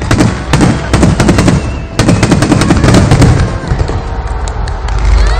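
Aerial fireworks bursting in quick succession: a dense barrage of sharp cracking reports over deep booms.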